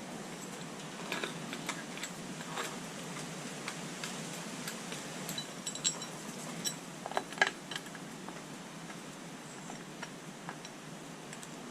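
Scattered light metallic clinks and ticks of bolts, brackets and hand tools being handled while engine brackets are loosely fitted, over a steady background hiss. The clinks bunch up about a second in and again around six to seven seconds in.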